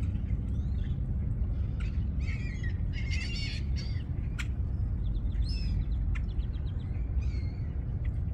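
Several birds chirping and calling in short, scattered phrases, with a couple of sharp clicks, over a steady low rumble.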